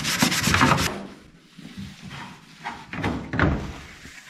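Hand scrubbing of an interior trim piece to lift off grime, in fast, even back-and-forth strokes that stop about a second in. A few lighter rubs and handling knocks follow.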